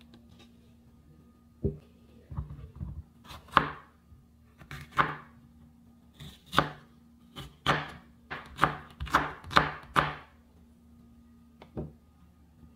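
Chef's knife slicing sweet peppers into strips on a wooden cutting board: about a dozen sharp knife-on-board chops at an uneven pace, with one last chop near the end.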